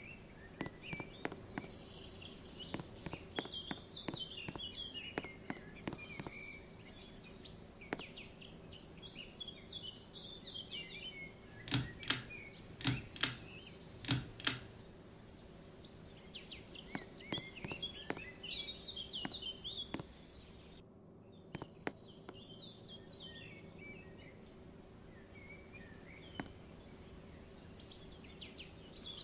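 52-inch ceiling fan running with a faint steady hum, under birds chirping and singing. About five sharp clicks come in a cluster near the middle.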